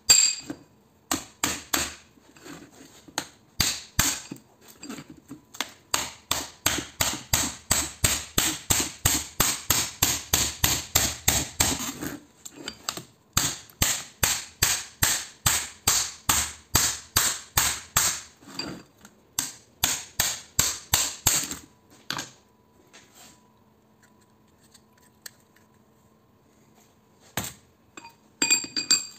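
Steel hammer striking a steel drift or punch held in a small transformer on a steel plate, knocking the copper winding out of the laminated core. The blows are sharp and metallic with a high ring, coming at a fast steady pace of about three or four a second with a short break midway. They stop about two thirds of the way in, and a few light taps follow near the end.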